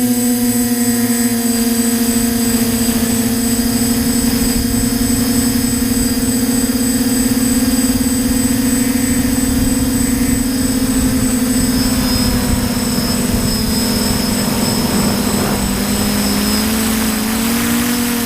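TBS Discovery quadcopter's electric motors and propellers whining steadily in flight over a rush of air noise. The pitch dips and then climbs back near the end as the throttle changes.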